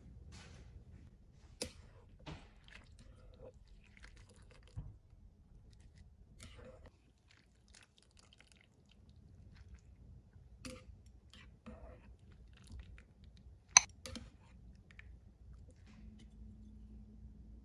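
Scattered small clicks and knocks of kitchen utensils and ingredients being handled during food preparation, faint, with one sharp click about fourteen seconds in.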